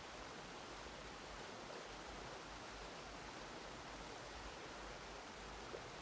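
Faint, steady, even hiss with no other sound.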